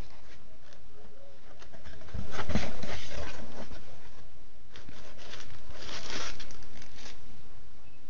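Packing material in a cardboard shipping box rustling and crinkling as it is handled: plastic wrap and crumpled paper around a boxed cable. It comes in two louder bouts, about two seconds in and again around five to seven seconds in.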